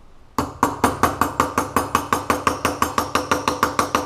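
A hammer rapidly tapping on metal at a seized anti-roll bar link bolt, about six or seven quick ringing blows a second, starting about half a second in.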